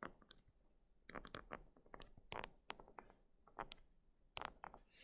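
Stylus tapping and scratching on a tablet's glass screen during handwriting: faint, irregular clicks and short scratches.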